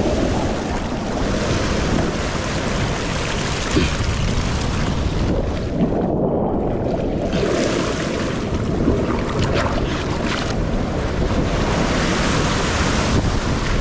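Surf breaking and washing over a rocky shore ledge, a continuous churning rush, with wind buffeting the microphone. The hiss drops away briefly about six seconds in.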